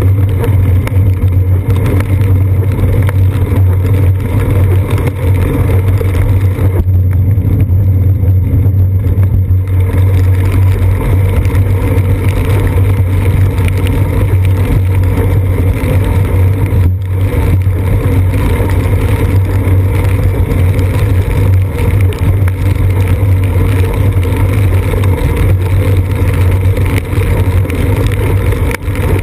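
Loud, steady low rumble of wind and road vibration picked up by a seat-post-mounted GoPro Hero 2 on a moving bicycle, with the hiss of tyres on wet pavement.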